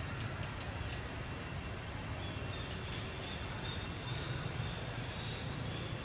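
Outdoor ambience: a steady low rumble with short, high chirps in two clusters, about four in the first second and three around the middle, and a faint thin high tone in the second half.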